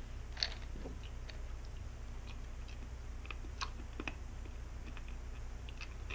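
Scattered small clicks and crunches of a hard sherbet lemon candy being eaten, over a steady low hum.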